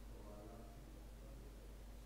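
Near silence: room tone with a steady low electrical hum, and a faint voice in the background briefly in the first second.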